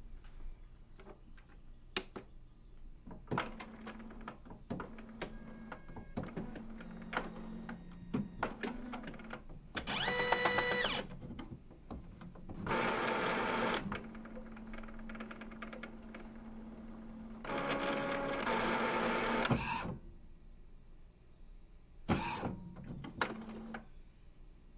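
Office printer starting up: a run of clicks and ticks over a steady hum, broken by four bursts of motor whirring of one to two seconds each as the printer's mechanism initialises.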